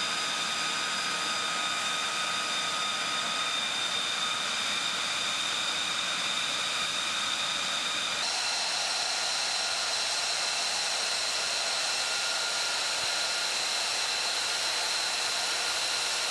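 Aircraft turbine running steadily: a high whine over a hissing rush. About eight seconds in, the whine tones jump to a higher pitch.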